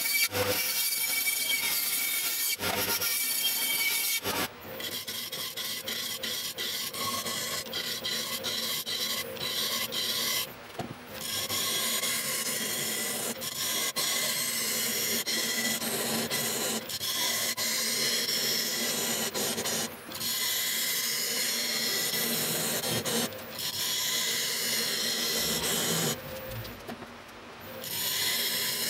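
A bandsaw cutting a wooden blank, then a wood lathe spinning a large wooden disc while a hand-held turning tool cuts into its face: a continuous scraping over a faint low motor hum, broken by a few brief pauses.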